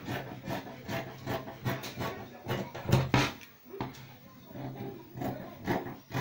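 Fabric scissors cutting through cotton fabric: repeated irregular snips with the blades rubbing the table as they close, the loudest about three seconds in, over a steady low hum.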